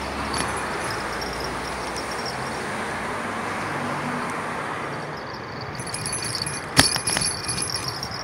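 Bicycle on the move: steady rush of wind and tyre noise, then from about six seconds in the bike rattles and clinks, with one sharp knock near seven seconds.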